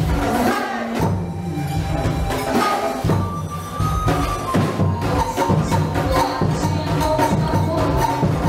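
Music with a steady, rhythmic percussion beat and a held melody line.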